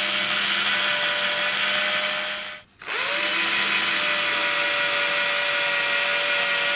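A handheld electric drill with a 3.5 mm bit runs steadily as it bores holes into a model railway module's ground. It stops briefly a little over two seconds in, then spins back up with a rising whine for the next hole.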